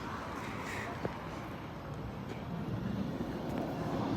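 Approaching train rumbling, growing louder over the last second and a half, with a single short click about a second in.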